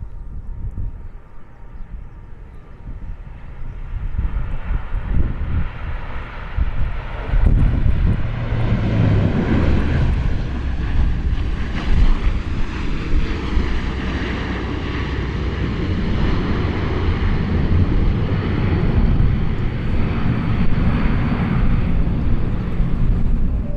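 Airliner coming in to land, its engine noise building from about four seconds in to a loud, steady roar with a faint whine on top, while strong gusty wind rumbles on the microphone.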